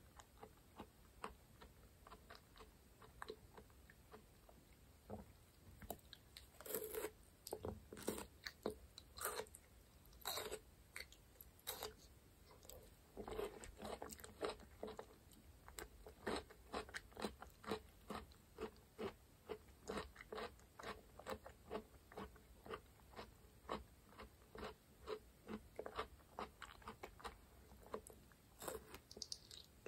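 Close-miked mouth sounds of a person chewing and biting raw aloe vera leaf gel with honey: a dense run of short, irregular clicks, with louder clusters from about six seconds in.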